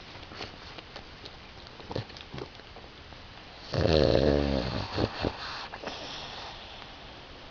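Sleeping pug snoring: one loud snore of about a second, slightly falling in pitch, about halfway through, then two short breaths just after. Faint soft clicks and breathing before it.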